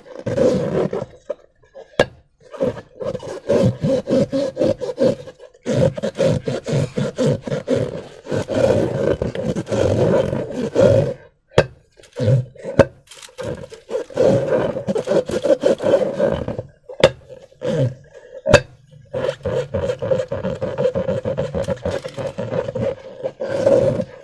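Slime being squished and stretched by hand, with squelching and rubbing in irregular bursts and a few sharp snaps.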